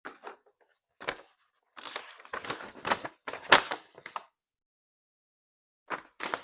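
Paper sheets being handled and unfolded, a run of irregular rustles and crackles. They stop for about a second and a half, then start again near the end.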